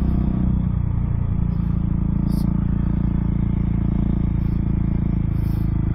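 Husqvarna 701's single-cylinder motorcycle engine running at a steady speed while cruising, with no rise or fall in revs.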